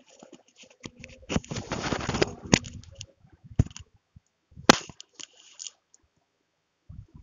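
Irregular clicks and knocks, with a denser stretch of rustling noise between about one and two seconds in and a sharp loud click near five seconds in.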